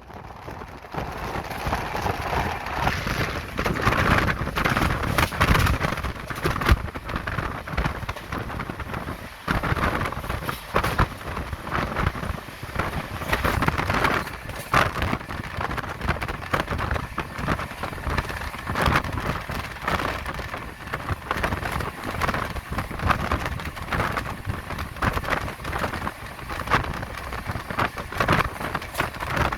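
Passenger express train running at high speed, heard from on board: a loud, steady rush of wind and wheel-on-rail noise with many irregular knocks and rattles.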